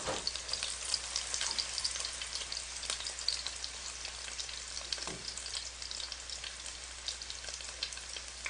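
Egg-battered pollack fillets sizzling and crackling in hot oil in an electric frying pan, a steady dense spatter. Two soft knocks, one at the start and one about five seconds in.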